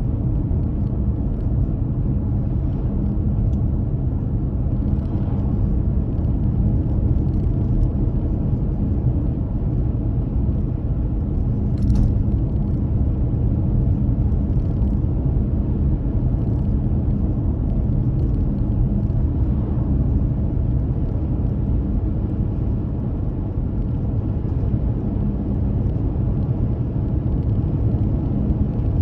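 Steady road and engine rumble of a car driving, with a low hum and a single short click about twelve seconds in.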